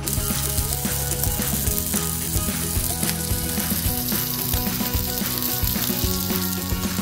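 Sliced goose breakfast sausage patties sizzling and crackling as they sear in hot oil in a frying pan.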